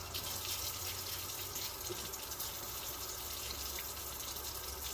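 Kitchen tap running steadily while fresh herb leaves are rinsed under it.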